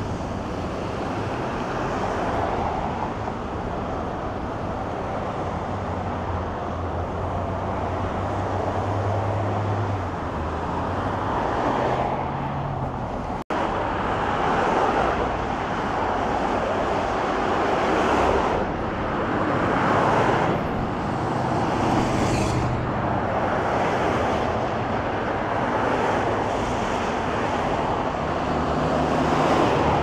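Street ambience with road traffic: cars running along the street with a steady wash of traffic noise and a low engine hum. The sound drops out for an instant about halfway through.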